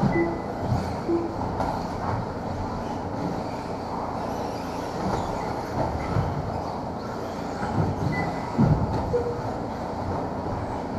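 Radio-controlled race cars running laps on an indoor carpet track: a steady whirring rumble of motors and tyres echoing around the hall, with a few dull thuds from cars landing or hitting the track edges.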